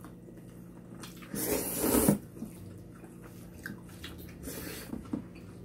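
Spicy cold noodles being slurped into the mouth: one long slurp about a second and a half in, then a shorter, fainter one about three seconds later.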